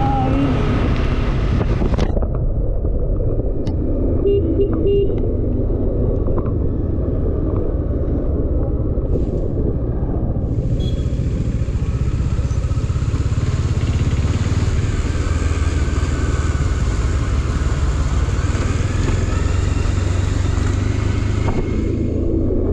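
Bajaj Dominar 400 single-cylinder motorcycle engine running steadily under way, heard from the rider's position. A few short beeps come about four seconds in, and a steady hiss of wind and road noise joins about ten seconds in.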